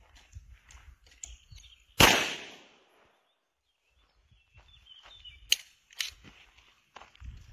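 A single handgun shot of 9 mm short (.380 ACP) ammunition about two seconds in, with a short echo trailing off for about a second. Two faint sharp clicks follow a few seconds later.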